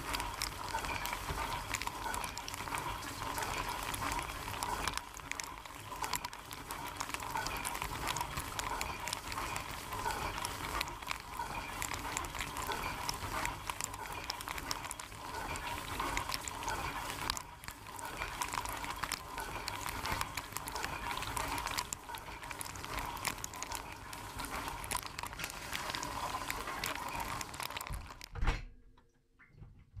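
Dishwasher wash cycle heard from inside the tub: water spraying and splashing steadily over the racks and walls, with a steady whine underneath. It cuts out suddenly for about a second and a half near the end.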